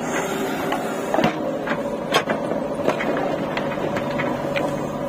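JCB 3DX backhoe loader's diesel engine running steadily with a constant whine as the backhoe works, while the bucket digs into dry, stony earth with scattered short clanks and knocks.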